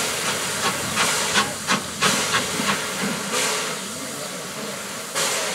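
LB&SCR A1X Terrier 0-6-0 tank engine starting away with its train, its cylinder drain cocks hissing steam and its exhaust beating in sharp chuffs about three a second for the first three seconds, then a steadier hiss.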